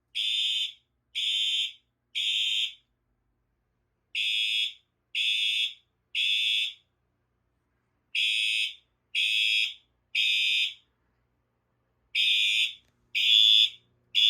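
Fire alarm horns sounding the temporal-three evacuation pattern: three short, shrill blasts about a second apart, a pause, then the three again, four times over. The last set of blasts is louder.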